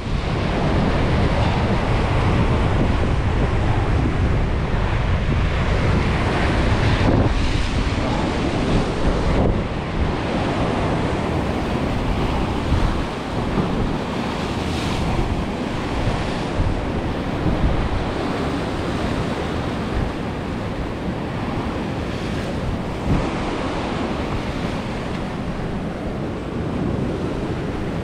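Heavy sea swell breaking and washing over a rocky reef, a continuous loud surf rush, with wind buffeting the microphone.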